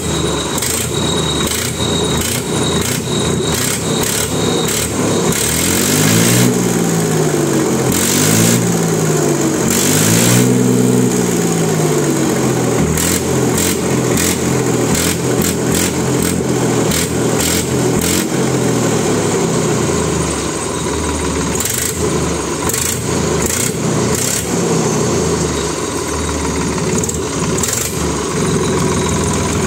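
Massey Ferguson 7250 tractor's three-cylinder diesel engine running with its silencer removed, so the exhaust sounds straight out and harsh. About a third of the way in it is revved up and let fall three times in quick succession, then keeps running with smaller rises and falls in speed.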